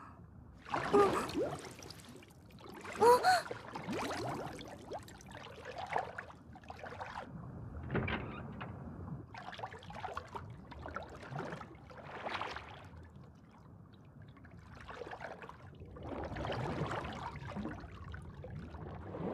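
Animated underwater sound effects: water swishing and bubbling in a series of swells, the loudest two near the start.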